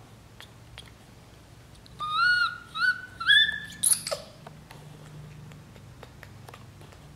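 Baby macaque crying: four short, loud, high-pitched cries in quick succession about two seconds in, the last one shooting up very high and then dropping. Faint light taps and clicks around them.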